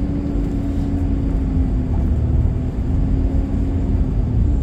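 Truck driving at low speed, heard from inside the cab: a steady engine and road rumble with a constant low hum.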